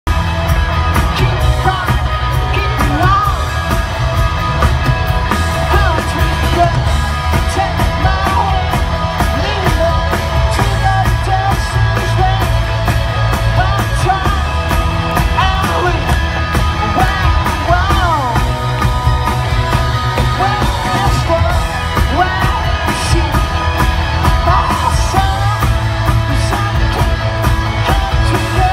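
Live rock band playing through a concert PA: singer with electric guitar, bass and a steady drum beat, heavy in the bass, heard from within the crowd.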